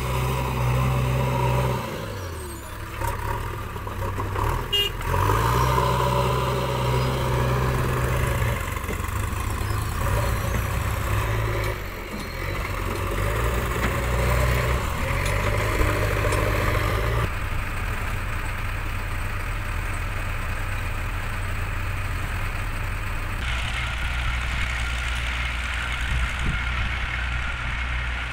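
JCB 3DX backhoe loader's diesel engine running under load, revving up and settling back several times as the loader bucket is raised and worked, with a tractor's diesel engine running as well. The engine sound changes abruptly twice in the second half.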